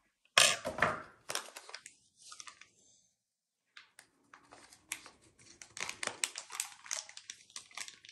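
Clear plastic packaging bag crinkling and rustling as it is handled and opened: a loud burst in the first second or so, a pause of nearly two seconds, then lighter crackling.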